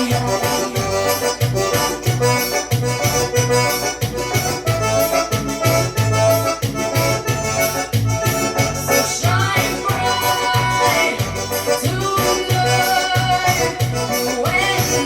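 Forró music with an accordion carrying the melody over a steady pulsing bass beat, played loud through a paredão sound system.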